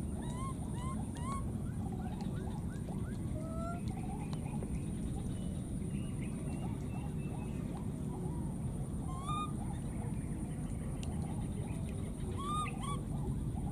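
Baby monkeys giving short, high squeaky cries: a quick run of them in the first few seconds, then scattered calls, with two louder cries later on. A steady low rumble runs underneath.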